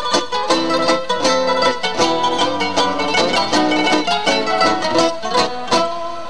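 Solo nylon-string classical guitar playing a tango, with quick plucked single-note runs broken by sharp struck chords.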